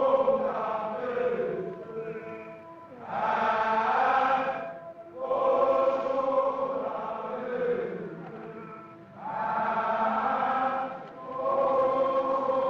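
Soundtrack music of a choir chanting: long held phrases that swell and fade, about five of them.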